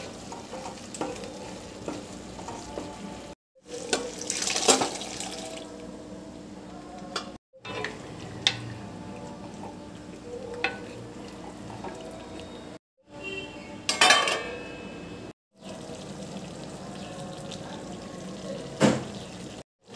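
Masala sizzling in a metal kadai while a wooden spatula stirs and scrapes the pan, with louder splashing bursts about four and fourteen seconds in. The sound breaks off abruptly several times at edit cuts.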